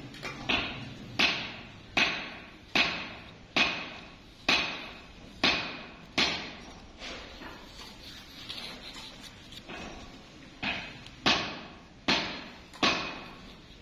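Hammer blows on metal, about one a second, each hit ringing briefly. About eight blows come in a row, then a few weaker ones for about three seconds, then four more strong blows.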